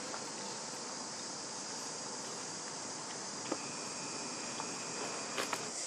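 Steady high-pitched drone of an insect chorus, with a few faint clicks about halfway through and near the end.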